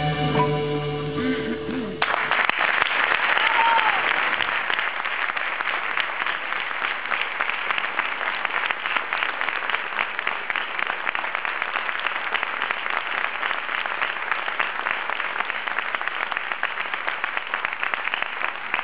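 A live band's closing chord holds and cuts off about two seconds in, then an audience applauds steadily, the clapping continuing to the end.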